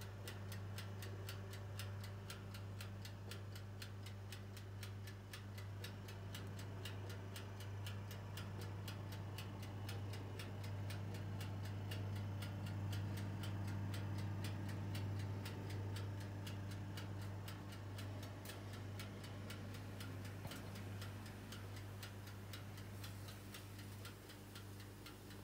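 Rapid, even ticking of an electric oven's mechanical timer over a low, steady hum.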